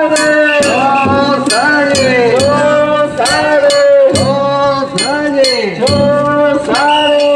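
A man sings a danjiri hauling song (hikiuta) in long, wavering held notes whose pitch drops at the end of each phrase, over sharp rhythmic beats about twice a second.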